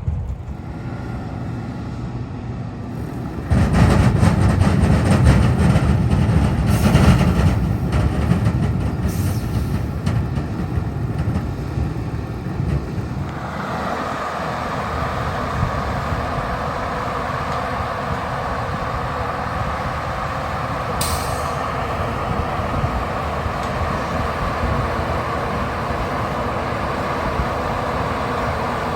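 Heavy harvest machinery running in a beet field: engines droning steadily, swelling to a louder deep rumble about four seconds in and settling back into a steady drone past the middle.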